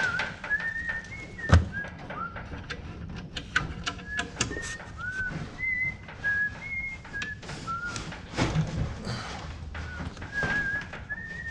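A person whistling a tune in short separate notes, with tool clinks and knocks throughout and one loud clunk about one and a half seconds in.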